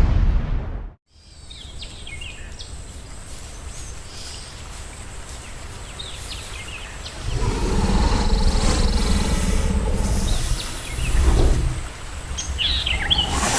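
Designed giant-monster (kaiju) sound effect. A deep rumble cuts off about a second in, leaving a quieter rumbling bed with faint high chirps. A long, deep, bass-heavy creature roar comes in about seven seconds in and lasts about four seconds, followed by high chirping cries near the end.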